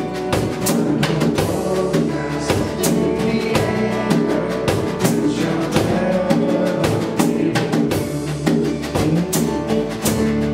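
Live worship band playing a song: drum kit keeping a steady beat under acoustic guitar, electric bass and keyboard.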